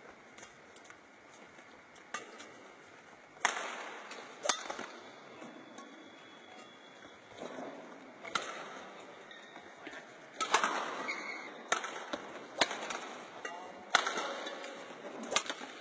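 Badminton racket strings striking a shuttlecock in a practice rally: a string of sharp hits one to two seconds apart, each followed by a short echo from the hall.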